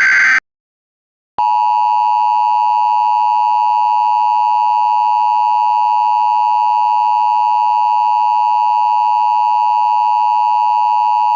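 The tail of an Emergency Alert System SAME header data burst, a short loud electronic warble. After about a second of silence comes the EAS attention signal: a loud, steady two-tone alarm held for about ten seconds, which stops abruptly.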